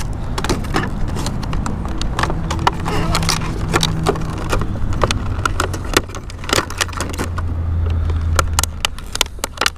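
Clear plastic clamshell packaging clicking and crackling as it is slid out of a cardboard box and handled. A low steady rumble runs underneath and grows louder about seven seconds in.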